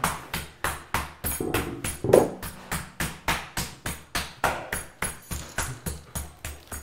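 Meat mallet pounding raw chicken breasts on a cutting board, sharp even blows about three a second.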